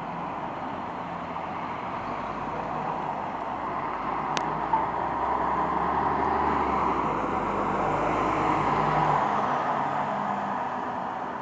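Three-axle double-decker coach driving past at low speed, its diesel engine and tyres growing louder as it comes close and easing off as it pulls away. A sharp click sounds about four seconds in.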